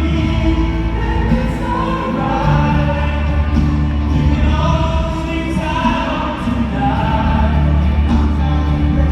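Live concert music: voices singing long held notes over a band with a heavy bass.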